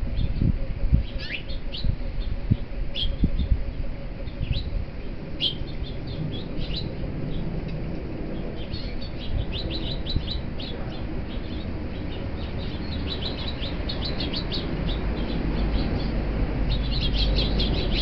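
Small birds chirping in short, scattered chirps that grow denser in the second half and busiest near the end, over a steady low rumble with a few soft low knocks in the first few seconds.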